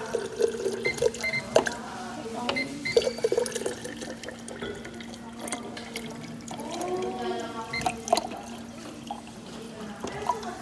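Hot water running from a dispenser spout in a thin steady stream into a stainless-rimmed insulated bottle, splashing and trickling as the bottle fills. A steady low hum runs underneath.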